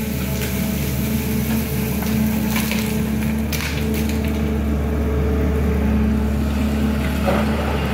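SANY crawler excavator's diesel engine running steadily under hydraulic load as it lifts and swings a bucket of broken rock, with brief rattles of rock falling from the bucket around two and a half and three and a half seconds in.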